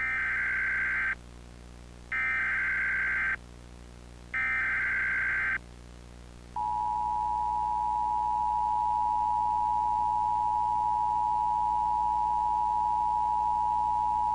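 Emergency Alert System tones: three short, buzzy digital header bursts about a second apart, then the steady two-note EAS attention signal held for about eight seconds, marking the start of an emergency broadcast.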